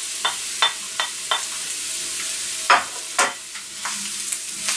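Diced onion sizzling in hot vegetable oil in a frying pan, just added to sauté until golden. A wooden spatula knocks lightly four times in the first second and a half, then scrapes twice, louder, about three seconds in.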